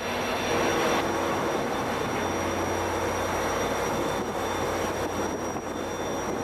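Caltrain F40PH diesel-electric locomotive running steadily at a standstill, a continuous engine rumble and hum with a thin, steady high whine over it.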